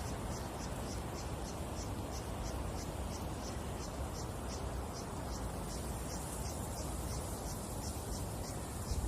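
An insect chirping steadily, short high chirps about three times a second, over a steady low rumble.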